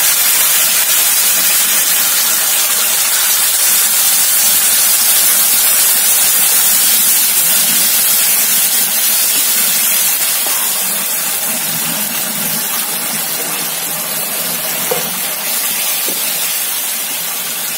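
Fried masala paste in a hot frying pan hissing and sizzling loudly as water is added and stirred in with a wooden spatula, the water flashing to steam in the hot oil. The sizzle eases a little after about ten seconds as the water takes up the heat.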